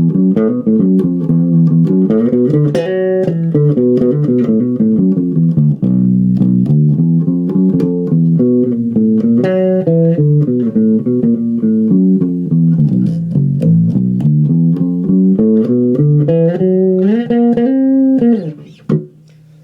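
ESP LTD B-206SM six-string electric bass played through a small 15-watt Crate practice amp, its bass EQ turned all the way up and the mids and highs cut. A steady run of quick plucked notes that rises and falls, ending on a held note that stops shortly before the end.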